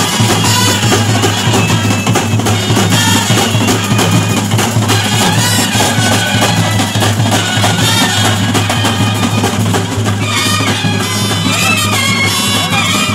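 Brass band of trumpets, clarinets and a euphonium playing a tune loudly over snare and bass drums.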